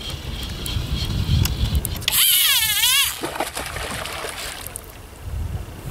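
A fly reel's drag buzzing for about a second, its pitch wavering up and down, as a hooked rainbow trout pulls line off the reel.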